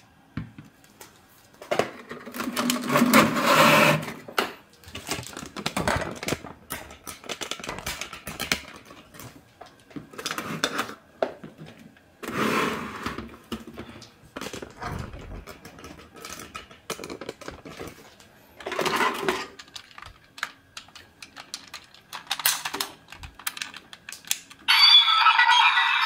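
Hands handling a plastic DX transformation-belt toy and its parts, with rustling, clicking and scraping in short bursts. Near the end the toy's small built-in speaker starts playing sound.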